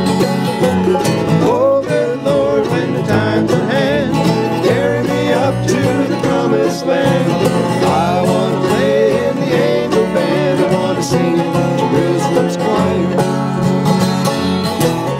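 Bluegrass band playing an instrumental break: mandolin, resonator banjo and acoustic guitar picking fast over an upright bass, with no singing.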